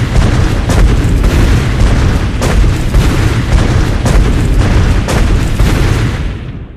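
Tyrannosaurus rex sound effect: a loud, deep, boom-like rumble with irregular sharp cracks through it, fading out near the end.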